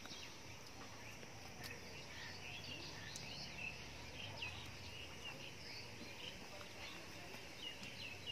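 Quiet outdoor ambience: many small, scattered bird chirps over a faint, steady low hum.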